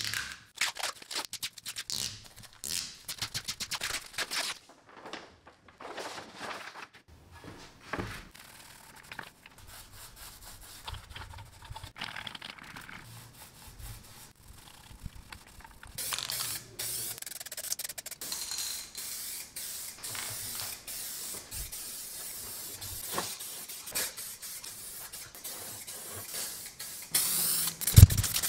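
Short scrapes and clicks of work on an acrylic sheet, then soft rubbing as a foam roller spreads paint on the metal cabinet. From about halfway comes a long steady hiss of spray painting, and a sharp knock just before the end.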